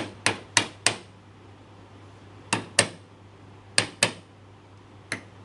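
Hammer blows on a wooden frame's mortise-and-tenon joint, knocking the tight-fitting joint apart: four quick sharp strikes, then two pairs of strikes, then one more near the end.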